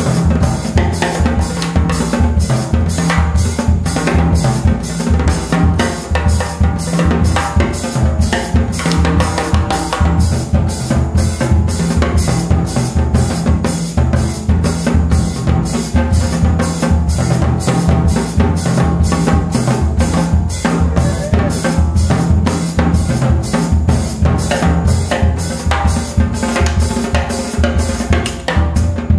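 Small jazz group playing a samba live, the drum kit loudest with a steady, busy rhythm over a bass line.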